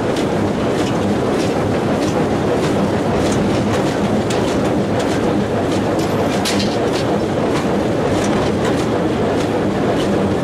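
Welger 830 small square baler working under load: a steady mechanical rumble with regular clicks or knocks about twice a second from the baler's mechanism.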